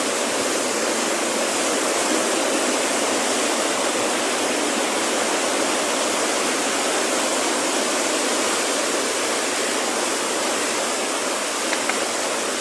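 Floodwater rushing past in a steady, unbroken roar of water.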